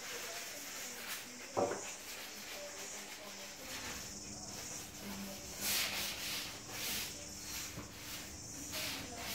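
Faint swishing and rubbing of a paintbrush on a wooden door frame, in a few short strokes in the second half, with a sharp click about a second and a half in, over a steady high hiss.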